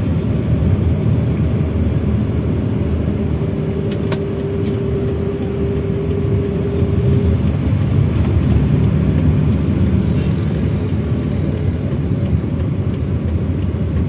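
A manual-transmission car being driven on a road: steady engine and tyre rumble. A steady tone holds for about four seconds in the middle, and two sharp clicks come close together partway through.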